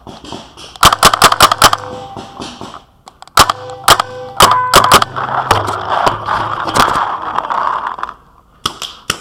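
Paintball marker firing two rapid volleys of shots, about eight in each, the first about a second in and the second about three and a half seconds in.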